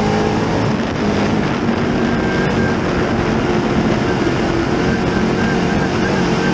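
A dirt late model's 604 crate small-block V8 running hard at racing speed, heard from inside the cockpit over a dense roar of wind and chassis noise. The engine note shifts a little midway through.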